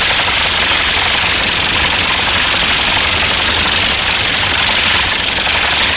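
TAM rocket engines at the rotor-blade tips of a small rocket helicopter, running steadily: a loud, even hiss with a low rumble beneath it as the helicopter hovers.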